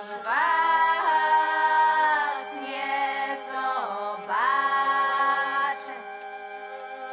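Background music: a singing voice holding long notes over a steady drone, with two phrases that each swoop upward at the start.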